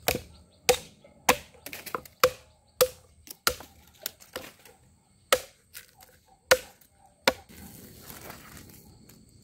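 A series of about a dozen sharp, hard strikes, one every half second to second, each with a brief ring. They stop a little past seven seconds in, giving way to faint rustling.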